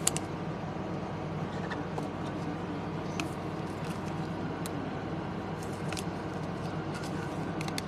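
Trading cards in plastic sleeves being handled and shuffled, giving a few faint ticks and rustles over a steady low room hum.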